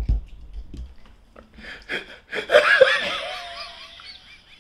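People laughing: a low thump at the start, then loud, high-pitched laughter from about two and a half seconds in that trails off near the end.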